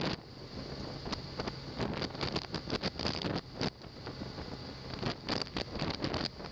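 Wind rushing over the microphone of a camera on a moving motorcycle, with the bike's engine running steadily underneath and frequent short knocks and rattles.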